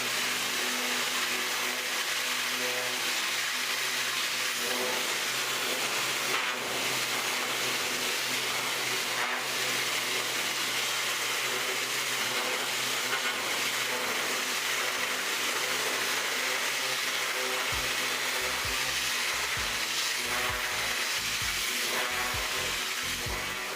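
High-pressure water cleaner spraying: a steady hiss of the water jet with the machine running underneath, unbroken throughout. A few low thumps come near the end.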